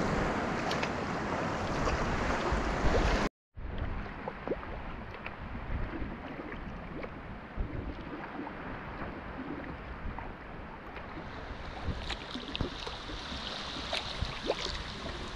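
Sea water moving around a kayak hull: first a loud rush of wind and choppy sea, which cuts off abruptly about three seconds in. Then quieter lapping water with small splashes and drips, and a brighter hiss of water building near the end.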